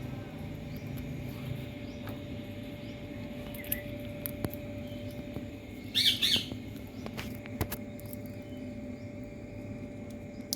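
Parrot giving two short, loud calls in quick succession about six seconds in, with a few fainter chirps and clicks around them over a steady faint hum.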